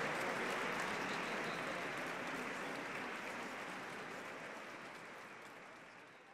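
Audience applauding, the clapping fading out steadily to nothing.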